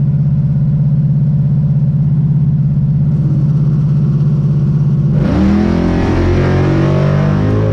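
Plymouth Satellite's big-block V8 idling with a steady, pulsing beat, then about five seconds in going to full throttle on a drag-strip launch, its pitch climbing sharply. There is a brief dip in pitch near the end.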